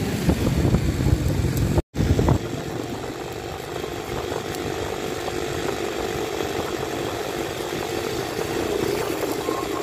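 A motor running steadily, louder and rougher for the first two seconds, cutting out for a moment about two seconds in, then going on more evenly with a faint steady hum.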